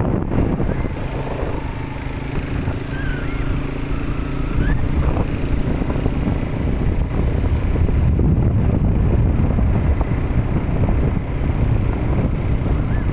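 Motorcycle engine running steadily while riding over beach sand, with wind rumbling on the microphone.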